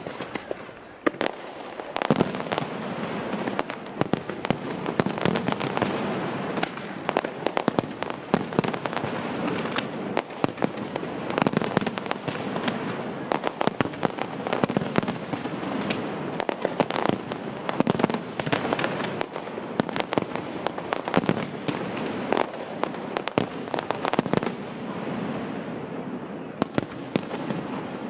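Fireworks display: a dense, continuous barrage of shell bursts and sharp bangs, several a second, over an unbroken crackling hiss.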